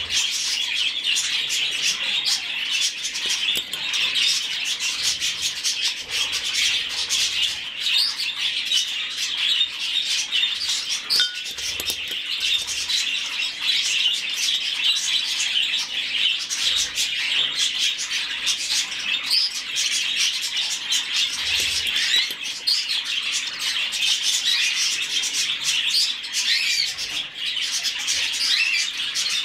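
Budgerigar chick's begging calls while it is hand-fed from a spoon: continuous, rapid chirping.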